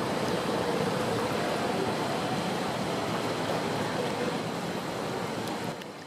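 Water from a burst 100-year-old water main welling up and churning through standing floodwater, a steady rushing burble that drops away and fades near the end.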